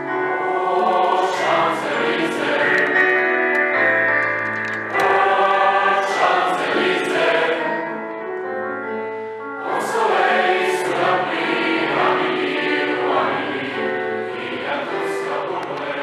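Mixed youth choir singing in several parts, holding sustained chords. The phrases are marked by fresh entries about five and ten seconds in.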